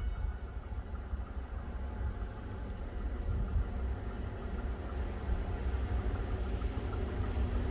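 An approaching train, its rumble and rail noise growing gradually louder.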